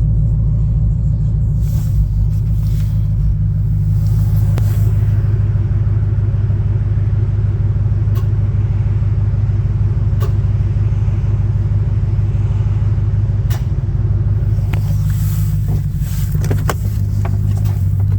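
GMC Sierra AT4 pickup engine idling steadily just after a cold start, with a few sharp knocks standing out over the running. This is the cold-start clunking/knocking that the owner says finally goes away once the truck has run a while.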